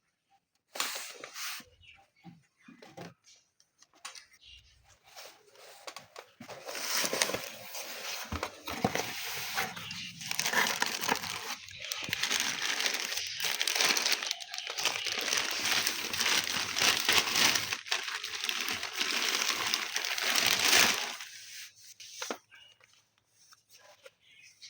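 A few sharp clicks, then a long stretch of crinkling, rustling handling noise that stops suddenly near the end.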